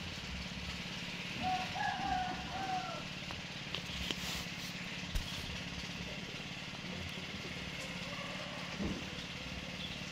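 Steady low hum of an idling engine, with a few short high chirps about two seconds in.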